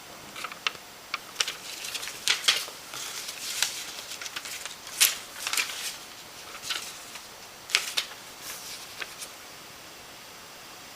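Irregular clicks and short rustles, some sharp and some softer, over a steady faint hiss, stopping about nine seconds in.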